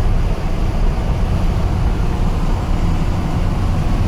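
Old Ford F100 pickup truck driving at road speed, heard from inside the cab: a steady low rumble of engine, drivetrain and tyre noise.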